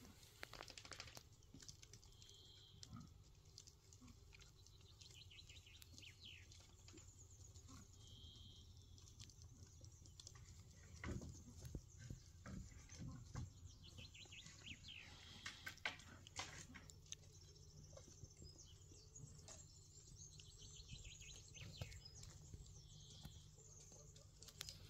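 Faint outdoor ambience: a bird singing a short, falling trilled phrase that recurs every several seconds, with brief chirps and scattered light taps and rustles.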